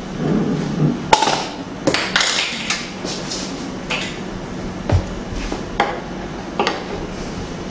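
Large sheets of background card being handled and shaken, with rustling and about half a dozen scattered sharp clicks and knocks.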